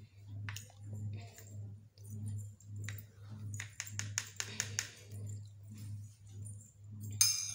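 A spoon stirring thinned yellow glue in a clear plastic cup, ticking and scraping against the cup with a quick run of clicks a few seconds in, over a low steady hum.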